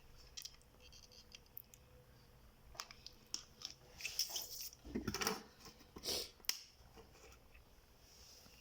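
Small clicks, taps and rustling from hands handling small objects, with a few louder scraping strokes between about four and six and a half seconds in.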